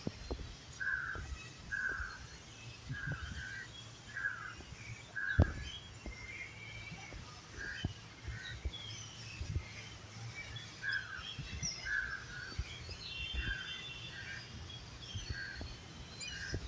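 Birds calling: a short, harsh call repeats about every half-second to second, pausing for a few seconds midway, with scattered higher chirps above it. Low knocks from handling are mixed in, one louder about five seconds in.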